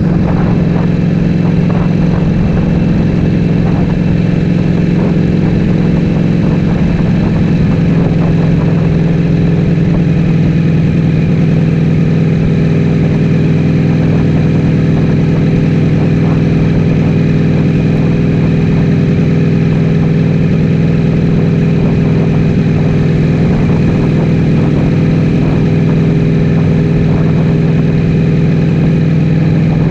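Ducati Streetfighter V4S's Desmosedici Stradale V4 engine through an Akrapovic full-system exhaust, idling steadily at an even pitch.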